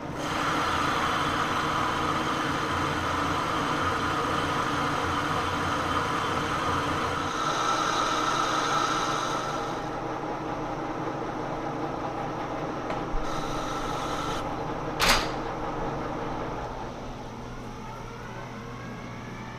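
Manual lathe running as a brazed carbide tool on a boring bar bores out the centre hole of a cast iron handwheel, a steady machine hum with a cutting noise. The sound drops in level about ten seconds in. There is a single sharp knock at about fifteen seconds.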